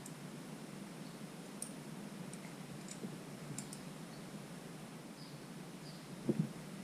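A few faint, light clicks of hand tools and engine valvetrain parts being handled, over a steady low hum, with one soft thump about six seconds in.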